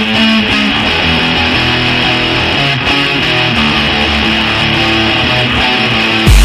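Background music with guitar. Just before the end it cuts abruptly to a louder track that opens with a deep low hit.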